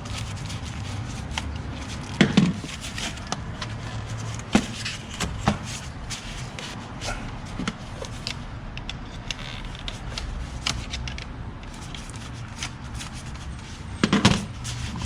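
Scattered clicks and knocks of hands and tools working loose parts under the hood of a car, with louder knocks about two seconds in and near the end.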